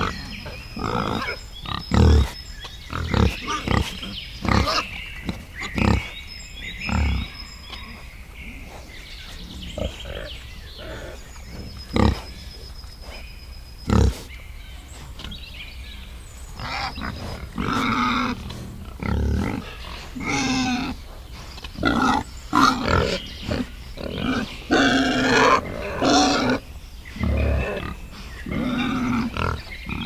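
Wild boar piglets grunting and squealing: short low grunts every second or two at first, then from about halfway on, longer, higher, wavering squeals in quick runs.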